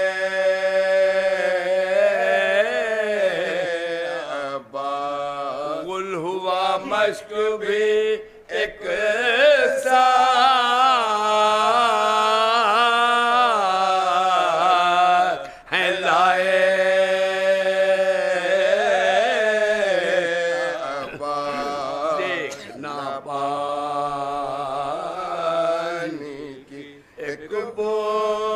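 Men singing a slow Urdu mourning elegy unaccompanied by speech: an elderly lead voice draws out long, gliding held notes while the men beside him sing along beneath him on a sustained low note. The singing breaks briefly for breath three times.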